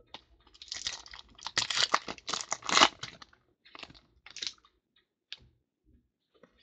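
Stiff trading cards being flipped and slid against one another in the hands: a quick run of papery swipes and snaps about a second in, then a few lighter clicks.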